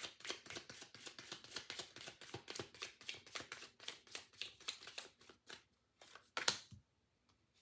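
Tarot deck being shuffled by hand: a fast, even patter of cards slapping together, about seven a second, thinning out near the end into a couple of sharper single card snaps.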